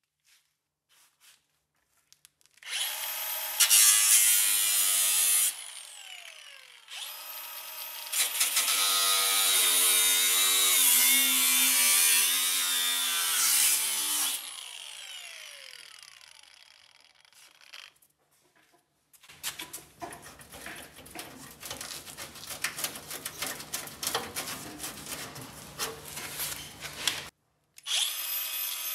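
Cordless angle grinder spinning up and grinding rusty steel body panels in two runs, the motor pitch wavering under load, then winding down with a falling whine. A harsher, crackling scraping follows for several seconds, and the grinder starts again near the end.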